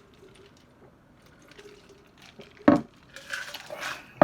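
A cup of iced drink being handled: a sharp knock a little past halfway, about a second of ice and liquid sloshing, then another knock at the end.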